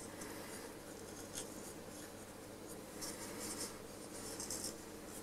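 Faint scratchy rubbing of dial cord and fingers against the dial drum and pulleys of a valve radio chassis as the cord is wound on. One short scrape comes about a second and a half in, and a cluster of scratches from about three seconds in.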